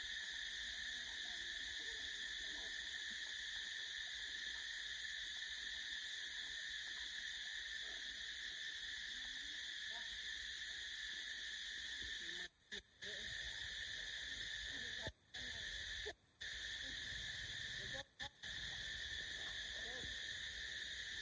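Steady high-pitched insect chorus that cuts out briefly four times in the second half.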